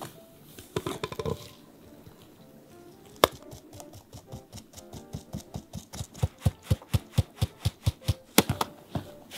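A gloved hand tapping a fine-mesh metal sieve, sifting flour and cocoa powder into a glass bowl: quick even taps, about four or five a second, that grow louder toward the end. About a second in, flour is poured into the sieve with a brief rustle.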